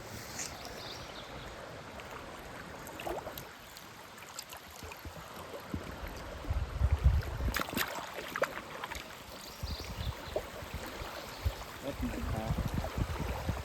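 River water flowing and lapping around a small boat drifting down the Manistee River, with a few light knocks and low rumbles in the second half.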